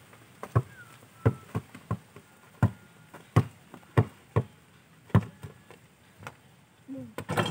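Basketball bouncing on a hard dirt court as it is dribbled: about a dozen sharp, uneven thuds.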